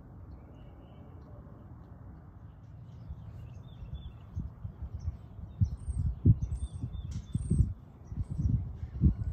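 Small birds chirping in short, high notes, growing busier after a few seconds, over a low, uneven rumble of wind buffeting the microphone that comes in gusts from about halfway through.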